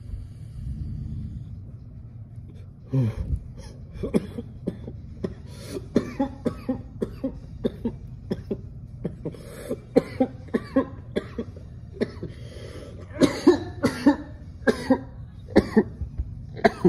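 A man coughing over and over in a long fit, starting about three seconds in, brought on by a hit from a disposable cannabis vape.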